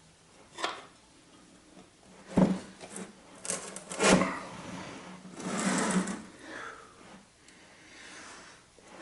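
Hand tire-changing noises: a few sharp knocks of metal tire levers against a motorcycle wheel rim, then a longer scrape as the tire bead is worked over the rim.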